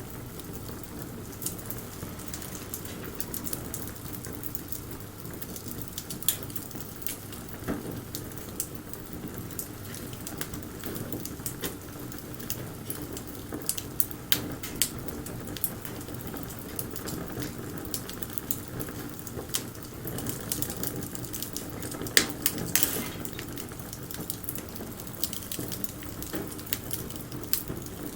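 Wood bonfire burning: a steady hiss under irregular crackles and pops of the burning wood, the sharpest pops coming about three-quarters of the way through.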